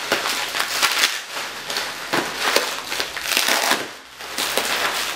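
Packing material crinkling and rustling as a bottle is pulled out of its box, in irregular bursts that ease off briefly about four seconds in.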